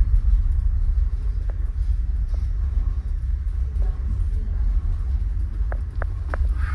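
Steady low rumble on board a car ferry under way, with a few faint short clicks scattered through it.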